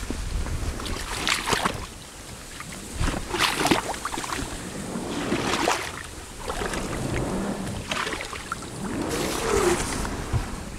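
Repeated swishing splashes of water, roughly one every two seconds, as from strokes through water.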